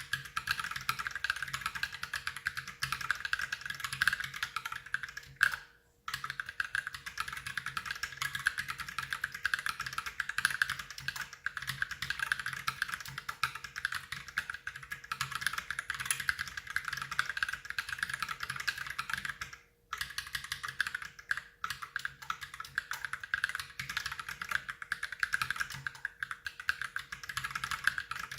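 Fast continuous typing on an Ultimate Hacking Keyboard with lubed Holy Panda tactile mechanical switches: a dense run of keystrokes, broken by two short pauses, about six seconds in and again near twenty seconds.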